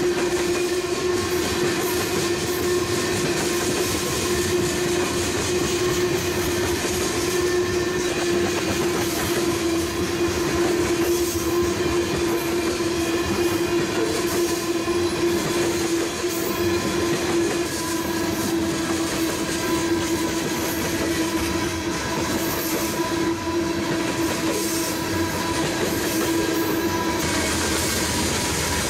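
Freight train of tank cars rolling steadily past at close range: wheels rumbling and clicking over the rail joints, with a steady singing tone held over the noise.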